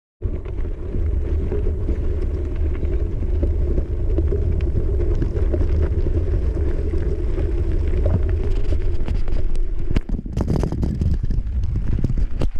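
Wind buffeting an action camera's microphone and mountain-bike tyres rolling on a gravel track, a steady low rumble. From about ten seconds in, clicks and knocks break through as the tyres hit loose stones.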